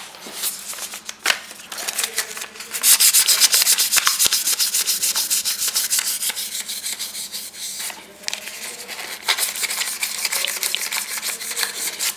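Paper rubbed hard back and forth over a BMW N63 cylinder head, wiping the grime off: fast, continuous scrubbing strokes, loudest from about three seconds in, with a short break near eight seconds before it picks up again.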